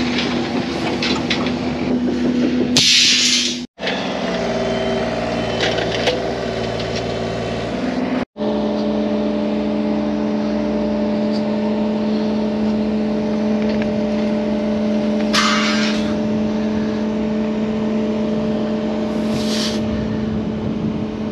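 Hydraulic excavator's diesel engine running steadily at working speed while it lifts a strapped bundle of rebar. A few short hissy, rasping bursts sound over it.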